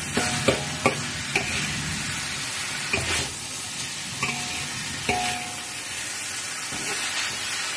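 Soaked basmati rice with chicken and carrot sizzling as it is stir-fried in a wok, with the spatula scraping and knocking against the wok every second or so, some knocks ringing briefly.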